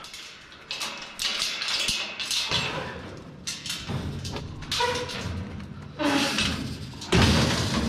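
Aluminium blinds being picked up and moved: the metal slats clatter and rattle in several bursts, with knocks and thumps.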